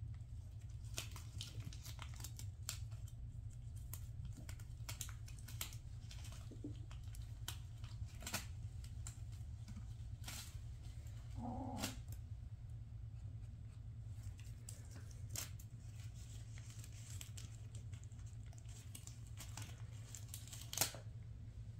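Scattered crinkles and light clicks as Bengal kittens play with a shiny plastic gift bow and crunch dry kibble on a tile floor, over a steady low hum. One sharper click comes near the end.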